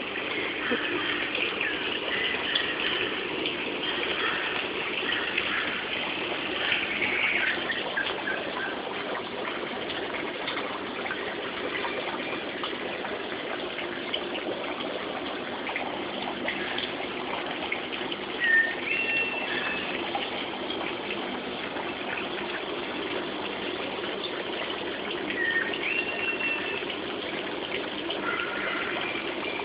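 Water running steadily into a goldfish pond, a continuous gushing splash, with a few short bird calls over it.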